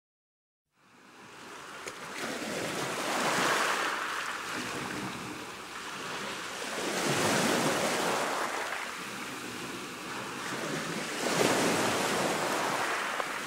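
Wind on the microphone and water rushing along a sailboat's hull under way, starting about a second in and swelling and fading three times, about four seconds apart.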